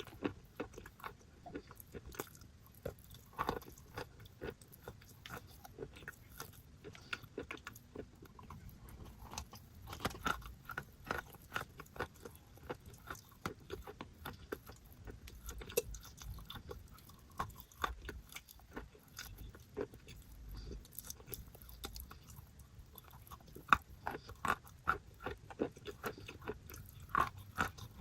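Close-up chewing of paste-coated chalk: irregular crisp crunches and small crackles as the chalk is bitten and ground between the teeth, with one louder crunch near the end.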